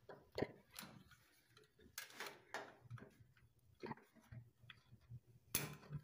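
Faint, irregular clicks and short scrapes from hands and a tool working on an electrical cable inside a metal control panel.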